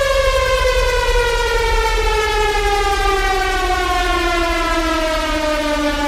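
A falling sound effect: one long siren-like tone sliding slowly and steadily down in pitch, over a steady low rumble.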